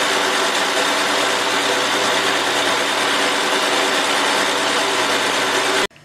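SIP Hydroptic 8 jig borer running steadily as its boring bar cuts a cylinder of a cast-iron AMC/Jeep 258 six-cylinder block oversize: a steady whine of several tones over a hiss. It cuts off suddenly near the end.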